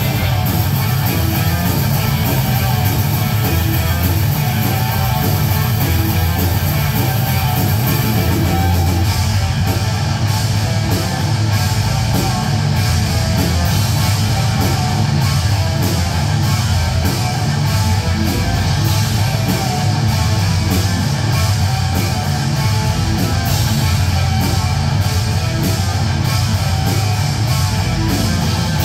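Rock band playing live and loud: electric guitars, bass guitar and drum kit together, with regular drum and cymbal hits standing out from about nine seconds in.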